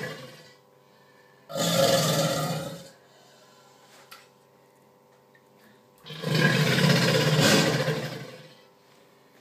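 American alligator bellowing: two long, deep rumbling bellows, the first about a second and a half in, the second about six seconds in and lasting over two seconds. The bellowing is its mating-season call.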